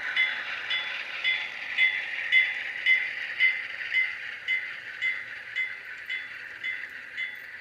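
HO scale model train running on its track: a steady whir with an evenly repeating metallic ping about twice a second, gradually getting quieter.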